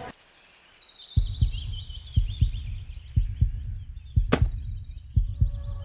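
Heartbeat sound effect in a horror soundtrack: paired low thumps, lub-dub, about once a second, starting about a second in, over high chirping in the background. A brief sharp hiss-like stab cuts in about four seconds in.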